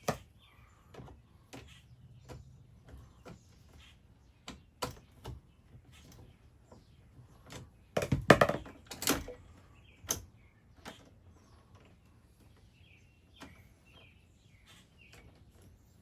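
Scattered clicks and knocks of hand work on an RV converter's wiring and mounting, with a short burst of louder clattering about eight seconds in.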